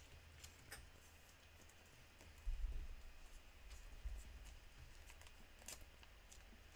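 Faint handling of Pokémon trading cards: soft clicks and slides as the cards are shuffled through in the hands and laid on the table, with a dull low bump about two and a half seconds in.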